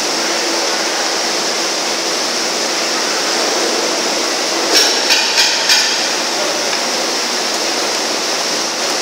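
Metal scraper knocking four times in quick succession against a steel cooking kettle as thick palkova is scraped out, about halfway through. A steady hiss runs underneath throughout.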